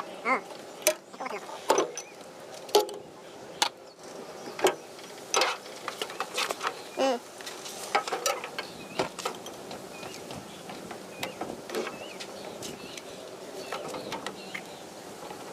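Sped-up repair work on a kitchen chimney hood: irregular clicks and knocks of tools and metal parts being handled, with short high chirpy fragments among them.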